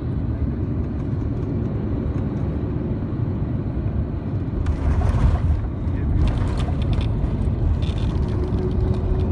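Airbus A350-900 cabin noise during the landing: a steady low rumble of engines and airflow. About five seconds in it grows louder and brighter, with rattling from then on, as the airliner reaches the runway.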